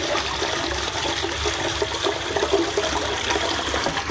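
Toilet flushing, with water rushing steadily into the bowl.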